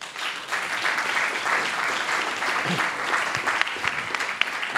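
Audience applauding, many hands clapping steadily at the end of a talk.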